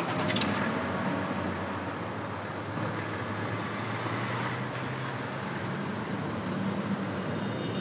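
BMW X5 SUV pulling away at low speed and driving past: a steady low engine hum with tyre noise.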